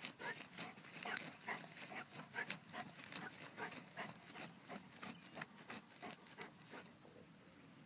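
Dog sniffing and snuffling with its nose pushed into loose soil while hunting a mole, a quick run of sniffs, three or four a second, that dies away near the end.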